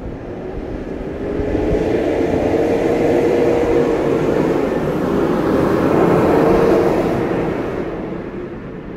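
Motor vehicle engine drone and road noise close at hand, swelling about a second and a half in, holding with the engine note rising and dipping twice, then fading near the end.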